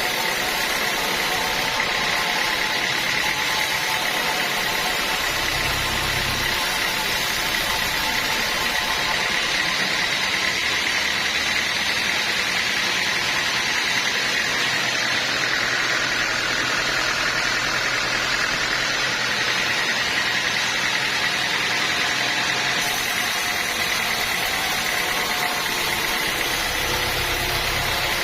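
Sawmill saw running steadily through teak logs, a continuous machine noise with a thin, steady high whine.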